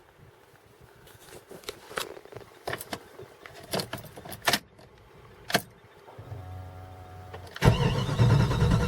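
Keys jangling and clicking into the ignition, then a low steady hum as the key is switched on. Near the end the starter begins cranking the cold 5.2-litre V8 of a 1995 Jeep Grand Cherokee, a loud even churning without the engine catching: the engine's cold-morning hard-start fault.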